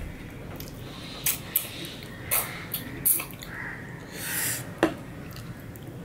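Fingers working food on a steel plate, with scattered small clicks and squishes. About four seconds in there is a short hiss as chutney is tipped from a small steel bowl onto the plate.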